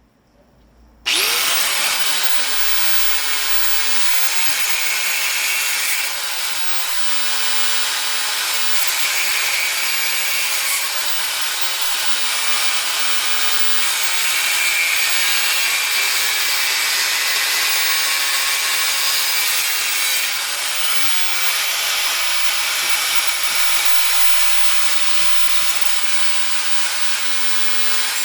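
Angle grinder spinning up about a second in with a quick rising whine, then running loud and steady as it cuts into a scrap electric motor to get at the copper windings.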